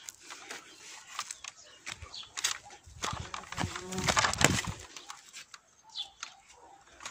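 Footsteps crunching and scuffing on dry dirt and fallen leaves, with handheld rustle, growing into a louder burst of scuffling and rustling about three to four and a half seconds in.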